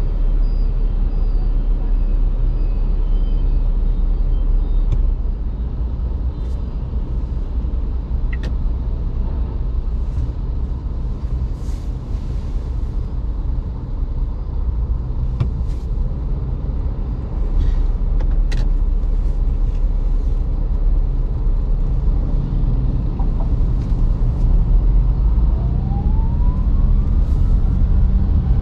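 Steady low road and tyre rumble of a VinFast VF5 electric car driving along. A few faint clicks are scattered through it, and there is a short rising whine near the end.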